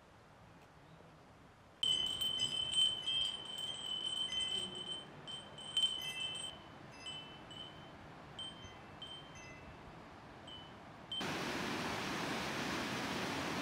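Many small bells hung on a tiered ring frame, chiming in the wind with clear high rings, busy at first and then in sparser single strikes. Near the end the sound changes abruptly to the steady rush of a waterfall pouring through a rocky gorge.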